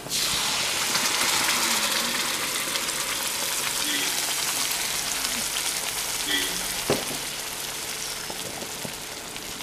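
Ground masala paste poured into hot oil in an iron kadai, setting off a loud sizzle that starts suddenly and slowly dies down as the paste spreads. A single knock about seven seconds in.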